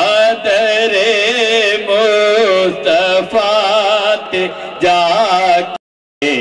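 A man's solo voice singing a naat, a devotional Urdu-Punjabi hymn in praise of the Prophet, into a microphone, with long wavering ornamented notes. The sound cuts out abruptly for about half a second near the end.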